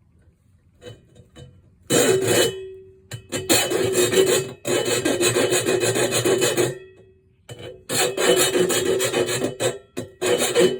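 A round file rasping back and forth against the edge of a Zildjian A Custom crash cymbal in several long strokes, beginning about two seconds in after a few light taps, with the cymbal giving a low ring that hangs on briefly after the strokes. The file is smoothing out a drilled-out crack in the cymbal's edge so the crack stops spreading.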